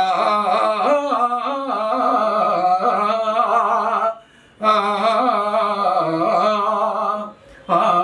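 A man singing a Telugu padyam (verse recital) in a slow, drawn-out melody, holding long ornamented notes. He breaks off briefly for breath about four seconds in and again near the end.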